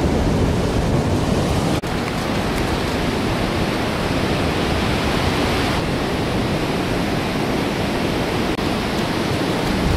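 Choppy ocean surf breaking and washing up the beach, with wind on the microphone, as a steady noise; it drops out for an instant about two seconds in.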